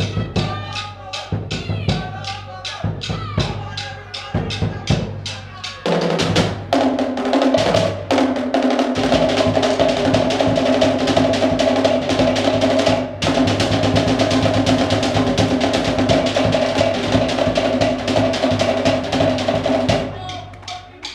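Cook Islands drum ensemble of wooden slit log drums, tall skin drums and a bass drum playing a rhythmic pattern. About six seconds in it breaks into a fast, continuous roll, with a brief break partway through, and cuts off suddenly near the end.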